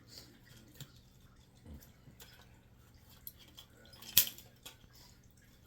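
Faint clicks of metal being worked on a circuit board with a pair of snips, with one sharp snap about four seconds in, over a steady low hum.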